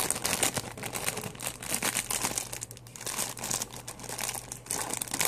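A squishy toy's wrapper crinkling and rustling as it is opened by hand, a dense run of irregular crackles.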